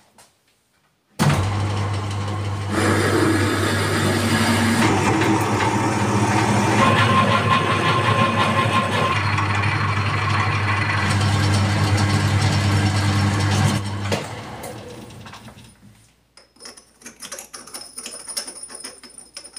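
Metal lathe switched on about a second in and running steadily with a low hum, its tool cutting a 6 mm steel plate held in the chuck. It is switched off and winds down near the end, followed by faint metallic clinks.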